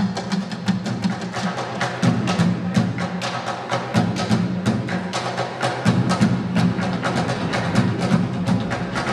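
Stomp-style percussion played on everyday objects: drumsticks beating a fast, driving rhythm on metal garbage cans and buckets, with many sharp strikes a second over deeper booming hits that come and go.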